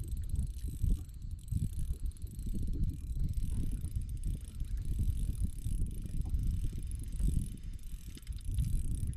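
Uneven low rumble of wind buffeting the microphone on an open boat, with the faint mechanical whirr and ticking of a spinning reel being handled.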